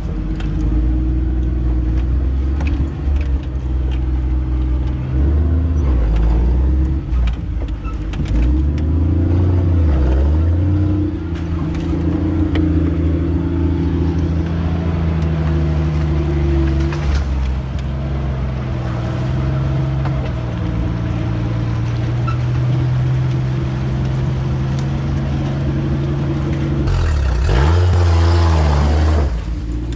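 Jeep CJ5 engine running at low revs while crawling over creek rocks, its pitch rising and falling as the throttle changes. Near the end there is a brief rush of noise as the front tyre goes through the creek water.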